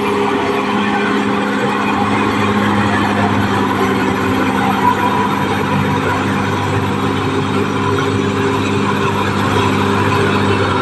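Caterpillar D6R XL bulldozer's diesel engine running steadily at constant revs.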